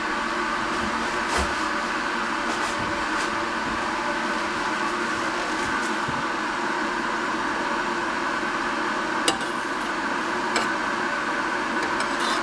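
Kitchen exhaust fan running with a steady hum, with a few light clicks, two of them sharper about nine and ten and a half seconds in.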